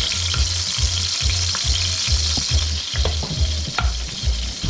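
Diced tomatoes sizzling in hot oil in a metal wok, stirred with a metal slotted spoon that clicks against the pan now and then. A low thumping repeats underneath, about four times a second.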